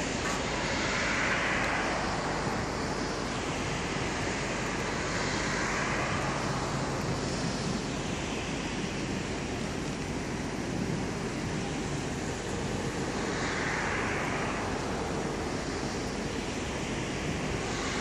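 Steady road traffic noise, with vehicles swishing past every few seconds.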